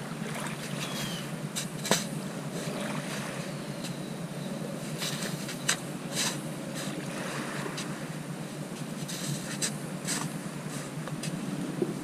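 A pointed shovel digging into damp sand: several short, sharp crunching stabs and scrapes at irregular moments as the blade is driven in and sand is lifted and dumped, over a steady rushing background noise.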